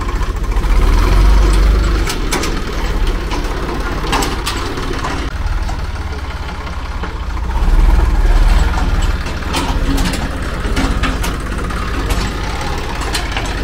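Tractor engine running with a heavy low rumble that swells twice, with scattered sharp clicks and knocks over it.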